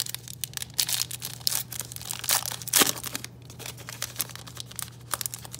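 Foil wrapper of a Topps XFL football trading-card pack being torn open and crinkled by hand: a dense run of crackling for the first three seconds or so, then sparser rustles as the wrapper is pulled apart.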